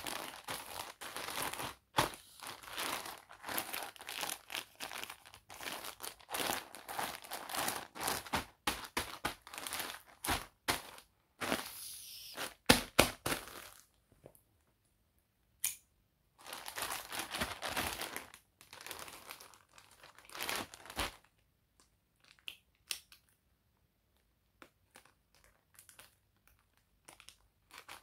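Crinkly plastic bag of latex balloons rustling and crackling as it is handled and turned over, in long stretches with pauses, including a few sharp snaps midway and only scattered faint ticks near the end.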